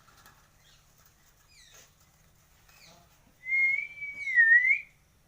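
A pet parrot's quick, falling chirps, then a loud wavering whistle lasting about a second and a half near the end, with more short chirps over it.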